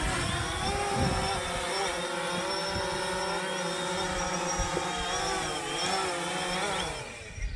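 A drone's propellers buzzing in flight, their pitch wavering slightly as the motors change speed, then dying away about seven seconds in.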